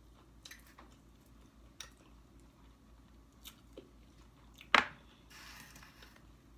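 A person eating a buffalo chicken wing: quiet chewing and small scattered mouth clicks, with one sharp, loud click a little under five seconds in and a brief soft rustling noise just after it.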